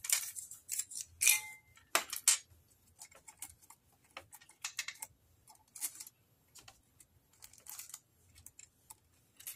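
Small plastic and wooden trinkets clicking and tapping against a glass jar and against each other as they are pushed in. A few louder clicks come in the first couple of seconds, then the taps grow sparser and lighter.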